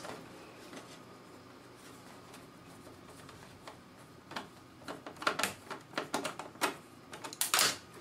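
Screwdriver clicking and scraping against the sheet-metal chassis of a Power Mac G4 tower while a power supply screw is worked loose by feel. Quiet at first, then a run of irregular clicks and taps from about halfway in, loudest near the end.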